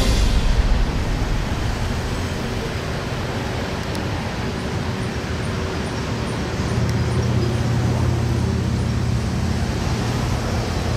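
Motor-vehicle noise: a steady wash of passing-traffic sound, with a low engine drone growing stronger about seven seconds in.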